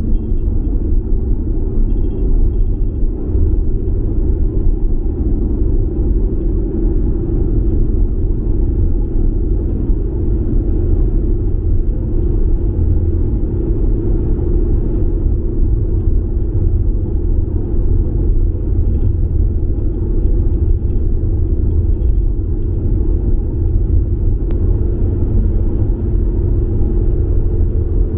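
A car driving along, heard as a steady low rumble of road and engine noise.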